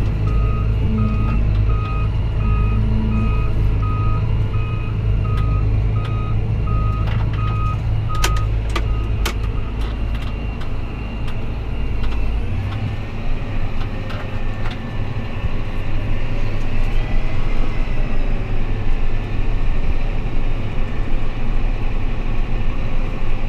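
Tractor engine running steadily, with a rapid electronic warning beep, about two to three a second, that stops about nine seconds in. A few seconds later the engine note changes.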